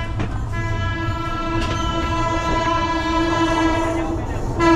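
Locomotive horn blowing one long, steady note, becoming louder about four and a half seconds in.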